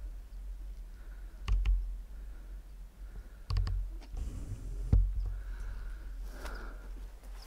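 Footsteps and knocks on loose stone: three sharp clicks, some doubled, roughly every one and a half to two seconds, over a steady low rumble of wind on the microphone.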